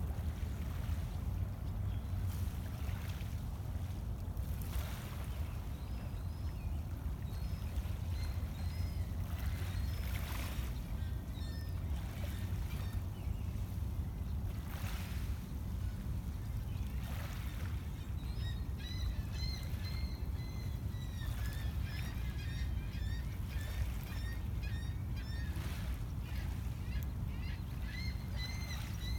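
Lakeshore ambience at dawn: a steady low rumble, with small waves lapping faintly on a pebble beach. From about two-thirds of the way in, a bird gives a run of short, high chirps.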